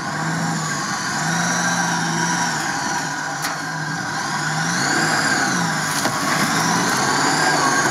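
UAZ-469 engine revving as the jeep drives through mud, its pitch rising and falling twice, with a high whine following the same rise and fall. The front axle is engaged and working, but with noises.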